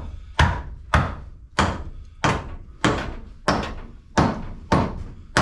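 A steady run of about ten heavy hammer blows, a little under two a second, each a sharp knock with a short ringing tail.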